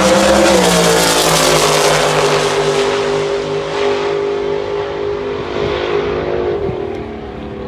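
Dragster engine at full throttle, running away down the drag strip on a solo pass. Its pitch drops about half a second in, then holds steady while the sound slowly fades with distance, falling again near the end.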